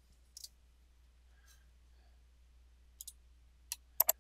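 Computer mouse buttons clicking, a few scattered clicks and then a quick, louder pair of clicks near the end, over a faint steady low hum.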